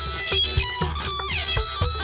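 Electric guitar playing a quick run of single notes, with a downward slide past the middle, over low notes held underneath.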